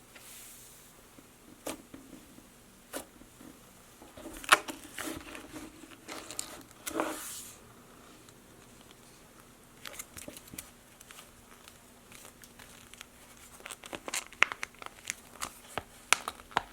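Slime being handled and squished, giving off irregular sharp clicks, crackles and crinkling. The sounds bunch together about four to seven seconds in and again near the end, with a quieter stretch between.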